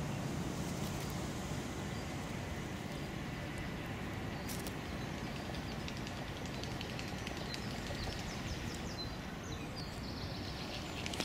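Steady outdoor background noise with a heavy low rumble and hiss. Near the end come a few light quick taps, a crow's beak pecking at the brick wall.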